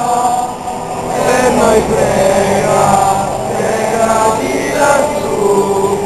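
A large crowd of devotees chanting together, many voices at once.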